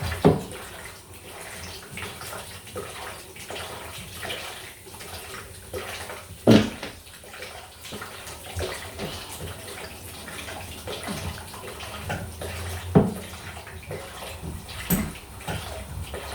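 Water running steadily from bathroom pipework while the mains stopcock has not fully shut off the supply. Sharp knocks sound now and then, loudest about six and a half and thirteen seconds in.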